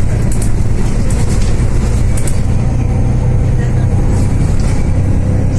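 Mercedes-Benz O530 Citaro city bus's diesel engine and ZF automatic gearbox running with a steady low hum as the bus drives, heard from the seat over the gearbox; the ZF gearbox is fairly quiet.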